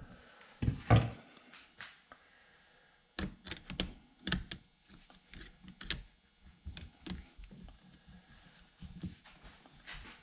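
Irregular clicks, taps and a few heavier knocks of metal tools against a chainsaw's plastic and metal parts as a tight part is worked at by hand, with the loudest thumps about a second in.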